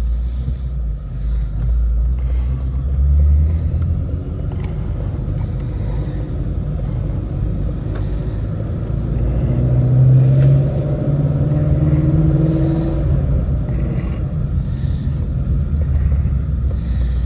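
Shelby GT350's flat-plane-crank V8 rumbling as the car drives, heard from inside the cabin. The engine note rises in pitch about halfway through as it accelerates, then eases back.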